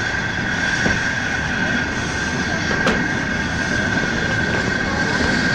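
RhB G4/5 narrow-gauge steam locomotive no. 107 giving off a steady, high-pitched hissing note over a low rumble, with a single sharp click about three seconds in.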